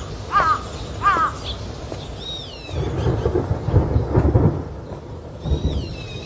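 A crow cawing twice, then a rolling rumble of distant thunder about three seconds in that swells again briefly near the end, with a couple of high falling bird chirps: a thunderstorm is coming.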